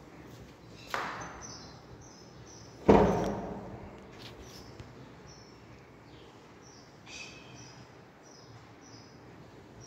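Two sharp knocks, about a second in and again just before three seconds, the second louder, each echoing in the bare, empty room. Small birds chirp with short high calls throughout.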